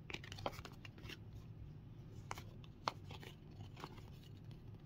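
Faint clicks and short rustles of Topps Heritage baseball cards being flicked through and slid one behind another in the hands, with the sharpest click about three seconds in.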